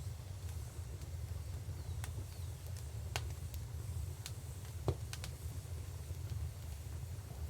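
Wood fire crackling, with scattered sharp pops (the loudest about five seconds in) over a steady low rumble.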